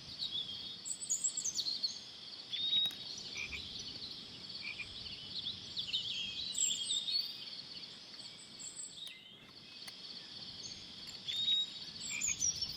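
Steady high-pitched outdoor animal chorus, frog-like calling, with short bird chirps scattered through and a few faint clicks.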